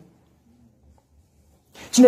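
Near silence: a pause in a man's speech with only faint room tone, then he starts speaking again near the end.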